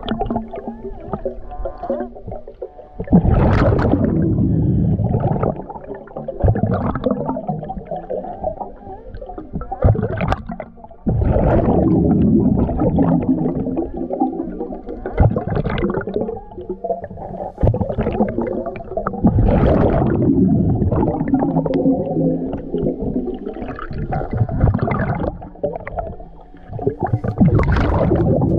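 Underwater sound of a diver breathing on a battery-powered hookah air system (Dive BLU3 Nomad): loud gurgling rushes of exhaled bubbles every several seconds, with a low rumble between them.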